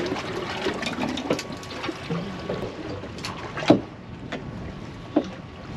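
Water and wind noise around a small boat drifting at sea, with a few sharp knocks, the loudest about three and a half seconds in and another about five seconds in.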